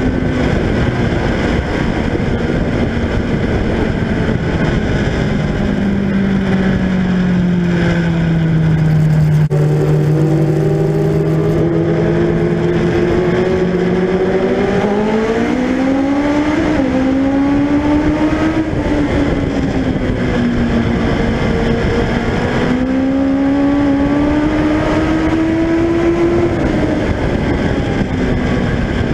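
INEX Legend race car's Yamaha four-cylinder motorcycle engine running at racing speed, heard on board the car with wind and tyre noise. Its note falls as the driver lifts for the turns and climbs again on the straights, twice, easing off near the end.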